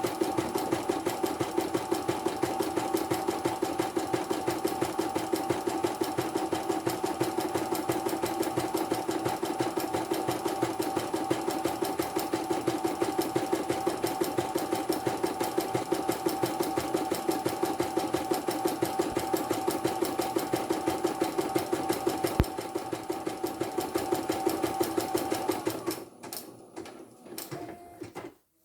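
Portable computerised embroidery machine stitching a test design at a fast, steady stitch rhythm, running without thread breaks on its newly replaced motor and tension set. It stops near the end, followed by a few short clicks.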